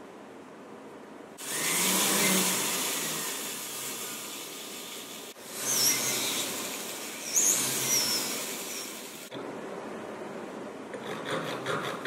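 A jeweler's rotary handpiece spinning a rod of carving wax while a flat graver cuts it, a loud steady whirr with brief high squeals from the cutting. Near the end, quick, regular strokes of a hand file on wax.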